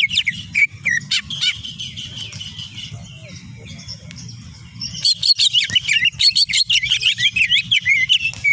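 Greater green leafbird (cucak ijo) singing a fast, varied stream of quick gliding whistled and chattering notes. The song eases off for a few seconds in the middle and comes back loud and dense about five seconds in, over a steady low hum.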